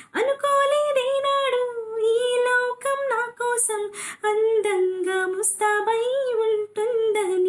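A high female voice sings a Telugu song solo and without accompaniment. She holds sustained notes with ornamental pitch bends and glides, broken every second or so by short breaths and consonants.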